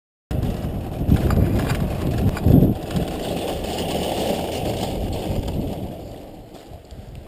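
Wire shopping cart rolling across asphalt, its wheels and basket rattling with a few sharp knocks, over a low rumble of wind on the microphone. It starts suddenly and grows quieter toward the end.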